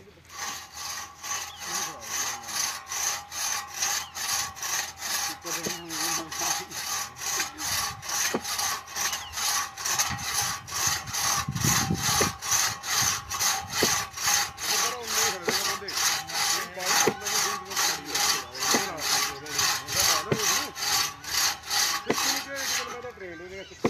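Two-man crosscut saw being pulled back and forth through a green tree limb, a steady rhythm of rasping strokes about two a second, stopping shortly before the end.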